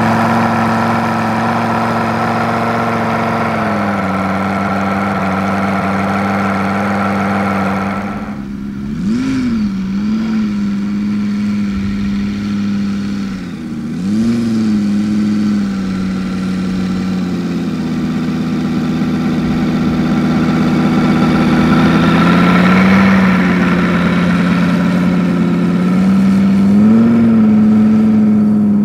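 Moki 250cc five-cylinder radial petrol engine of a large RC Hawker Sea Fury model, turning a five-blade propeller through a 3:1 planetary reduction gear, running on the ground at low throttle. A few short throttle blips briefly raise the pitch.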